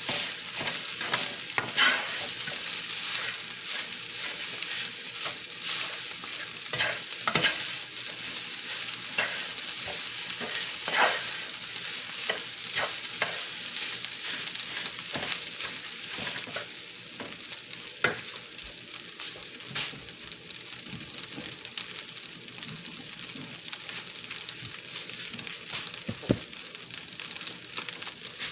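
Fried rice sizzling in a pan while being stirred, with frequent scrapes and knocks that grow sparser near the end.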